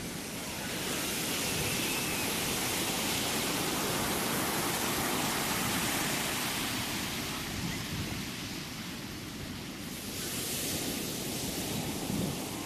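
Ocean surf: a steady rushing of waves that swells about a second in, ebbs a little later on, and swells again near the end.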